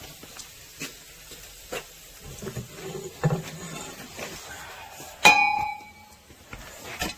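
Scattered light clicks and knocks, then about five seconds in a single loud metallic clang that rings briefly with a few clear tones.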